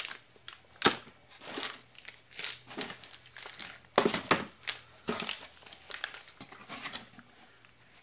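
Plastic parts bags crinkling and rustling as they are handled and lifted out of a cardboard box, with sharp crackles about a second in and again around four seconds.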